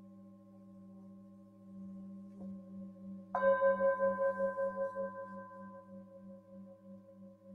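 Tibetan singing bowls ringing in several steady tones with a slow wavering pulse. About two and a half seconds in, a bowl is lightly tapped, and about a second later one is struck firmly with a mallet, ringing out loud and fading slowly.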